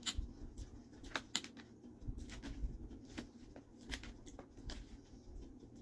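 A fork poking and scraping through salad in a clear plastic clamshell container, giving a string of irregular sharp plastic clicks and taps.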